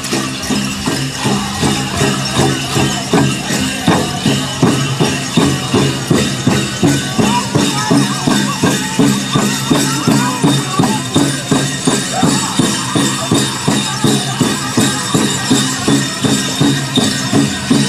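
Pow-wow drum group playing a grand entry song: a large drum struck in a steady, even beat under chorus singing, with the jingle of dancers' bells.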